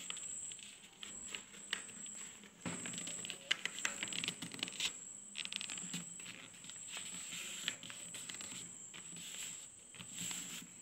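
A sheet of paper being folded and creased by hand on a table: irregular rustling and scraping as the fold is made and pressed flat.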